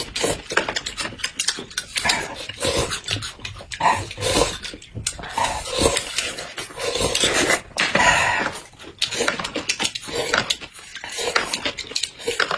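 Close-miked eating sounds: noodles slurped through pursed lips, bites into a raw apple, and wet chewing. The sound is a busy run of short smacks and crunches, with a longer slurp near the middle.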